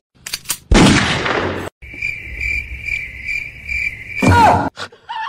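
A short burst of hissing noise about a second in, then a high chirp pulsing about two to three times a second for nearly three seconds, like a cricket, cut off by a brief falling cry near the end.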